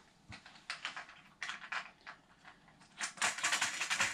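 Plastic clicking and rattling as a toilet seat's nylon mounting bolts and nuts are fitted and turned by hand. A few separate clicks come first, then about three seconds in a dense run of rapid clicks, the loudest part.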